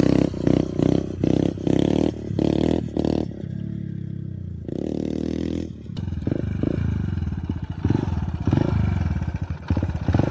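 Suzuki dirt bike engine revved in quick, repeated throttle blips while the bike is held up on its back wheel in a wheelie, with a longer burst of throttle about five seconds in. Near the end the engine note drops and it runs slow with short blips as the bike rolls up and stops.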